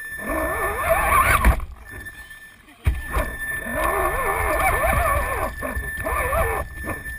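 Motor and drivetrain of an RC rock crawler whining in two spells, the pitch rising and falling with the throttle, over a low rumble. A sharp knock comes about three seconds in, as the second spell begins.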